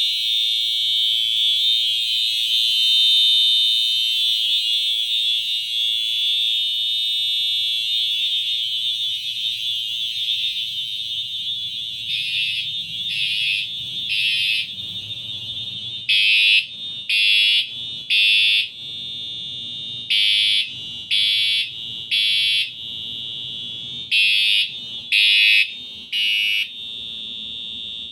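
Two fire alarm horns sounding loudly, an FCI multi-tone horn strobe on its horn tone and a Siemens horn strobe. A steady continuous horn tone plays at first. From about twelve seconds in, a horn sounds in repeating groups of three blasts about a second apart, the temporal-three evacuation pattern, over a quieter steady tone.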